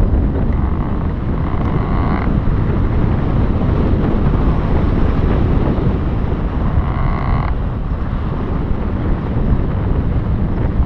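Strong wind rushing over the microphone, as in the airflow of a paraglider flight: a steady, loud, low rumble. Twice a higher hiss rises over it, from about half a second to two seconds in and again briefly around seven seconds in.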